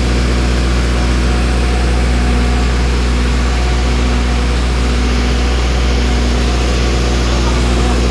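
Motorstar 50 kVA diesel generator set running steadily, with an even low engine hum that does not change.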